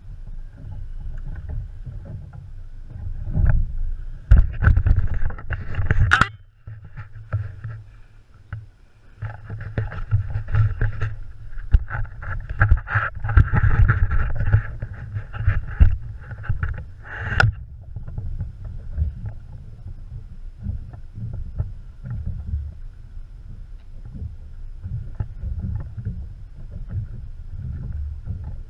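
Wind buffeting the microphone and water moving around a small open boat, a choppy low rumble, while a hooked fish is fought on a bent rod. Two louder spells of a higher rattling buzz, one about three to six seconds in and a longer one from about ten to seventeen seconds in, each cut off sharply.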